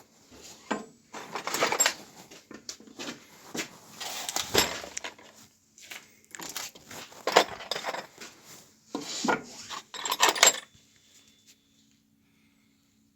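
Hard objects, metal and wood, clattering and clinking as they are handled, in a run of irregular bursts that stops about ten and a half seconds in.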